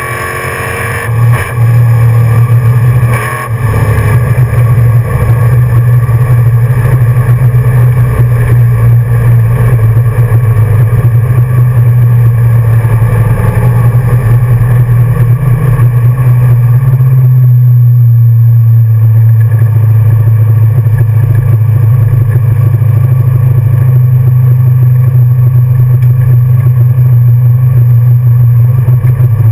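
The 1966 Ford Mustang's 347 stroker small-block V8 running loud and steady at low speed, heard from inside the cabin, with a couple of short knocks in the first few seconds.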